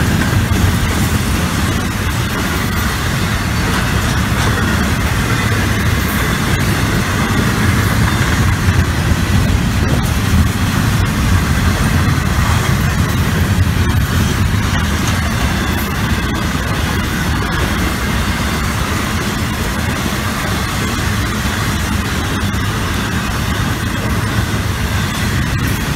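Florida East Coast intermodal freight train's double-stack and trailer cars rolling past close by: a steady, loud rumble of steel wheels on rail with faint scattered clicks.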